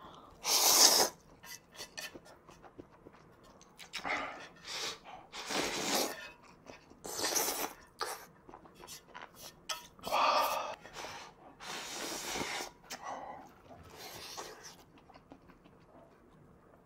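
A person slurping ramen noodles and spicy broth: a string of about seven separate slurps with short pauses between them.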